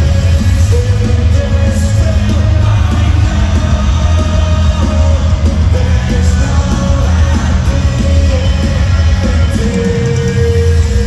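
Loud live rock music from a concert PA: heavy bass and drums, guitars and vocals, with the crowd's shouting and singing mixed in, recorded from the audience.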